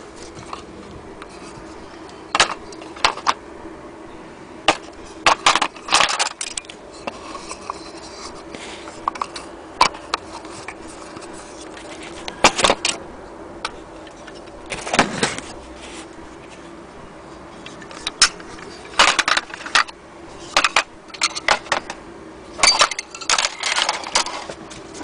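Hard clock parts, the metal dials and bezels and the glass fronts, clinking and clattering as they are handled, in irregular bursts of sharp clicks, over a faint steady hum.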